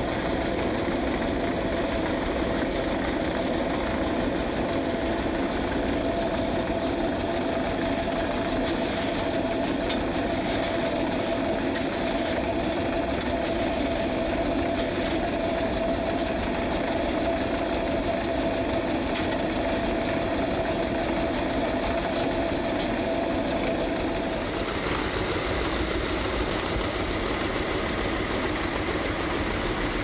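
A New Holland tractor's diesel engine running steadily at a construction site machine, with a steady whine over it. The whine stops about three-quarters of the way through while the engine keeps running.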